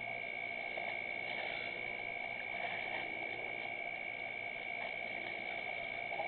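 Steady background hiss with a constant high-pitched whine, unchanging throughout.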